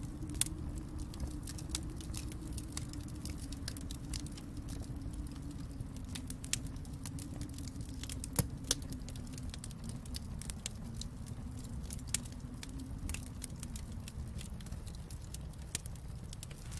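Wood fire in a fireplace crackling: frequent small pops and snaps, with a few sharper ones about half a second in and two close together near the middle, over a steady low rumble.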